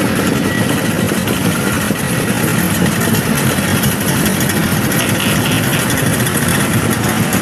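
Several vintage Italian scooter engines running together in a loud, steady drone.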